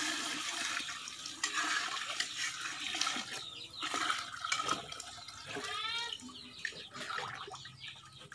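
Water poured in a steady stream from a metal pot into a large cooking pot of vegetables, splashing for about five seconds before it stops. A few knocks follow, and about six seconds in there is a short, high call.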